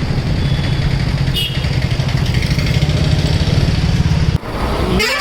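Motorcycle engine running steadily on the move, a low pulsing rumble that breaks off abruptly about four seconds in.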